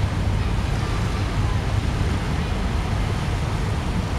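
Steady outdoor ambience: a constant low rumble with an even hiss over it, and no distinct event standing out.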